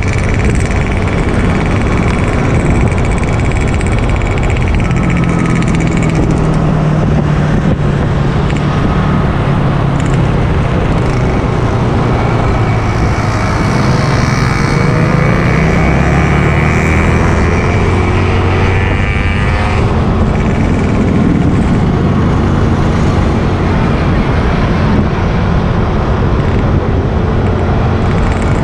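Motorcycle ridden along a road: steady engine hum under rushing road noise, the engine pitch shifting a little midway.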